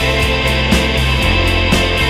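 Indie pop song in an instrumental stretch: a full band of guitars, bass and drums playing a steady beat, with no singing.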